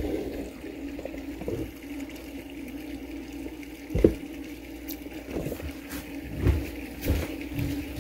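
A steady rushing noise with a low hum under it, broken by a few dull knocks; the loudest knock comes about four seconds in.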